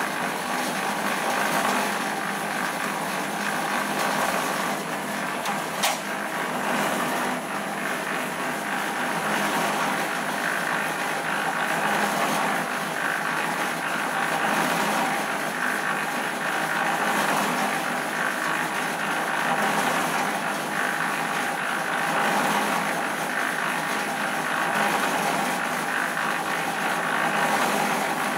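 A small portable drum concrete mixer running steadily, its drum turning on the ring gear with its load churning inside. There is one sharp knock about six seconds in.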